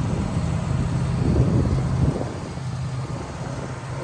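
Woodmizer LT15 band sawmill running, its engine droning steadily while the blade squares off a pine log; the drone drops in level about two seconds in.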